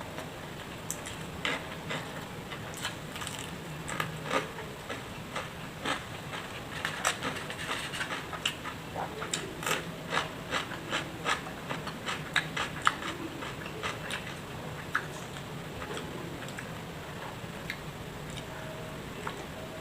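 A person eating close to the microphone: chewing with many short, sharp crunches and clicks, coming thickest from about seven to thirteen seconds in and thinning out near the end, over a low steady hum.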